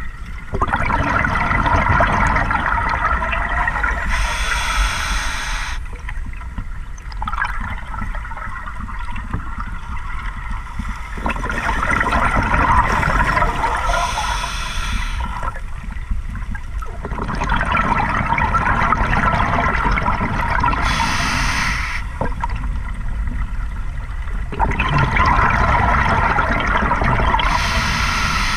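Scuba regulator breathing underwater: long bubbling rushes of exhaled air alternating with short hisses of in-breaths, about four breaths, one every six or seven seconds.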